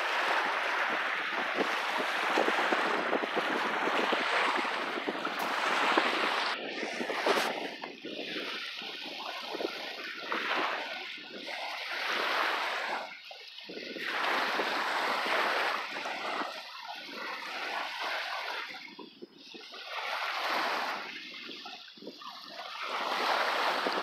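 Small waves washing onto a sandy lake shore, the surf swelling and fading every two to three seconds.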